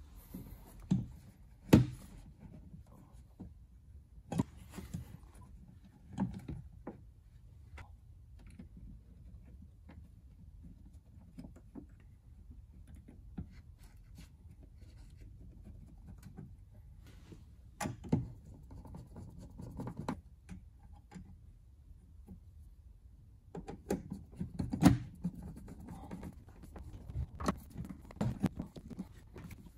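Scattered knocks and clicks of a car door speaker being handled, set into its mount in the door panel and screwed in, with the sharpest knocks about two seconds in and near the end.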